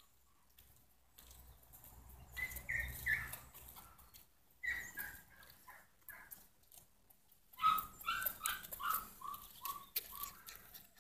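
Bernese mountain dog puppy yipping: short high-pitched barks in three bouts, the last a quick run of about eight yips.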